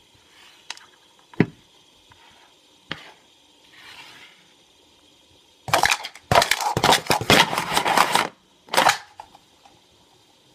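Plastic dice clicking down one at a time on a hard tabletop, then a couple of seconds of dense rattling and clattering as dice are scooped and tossed, with one more short clatter after it.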